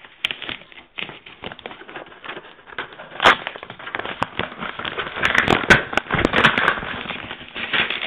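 Plastic and paper parcel wrapping crinkling and tearing as it is pulled open by hand: a run of sharp crackles and snaps, sparse at first and busiest in the second half.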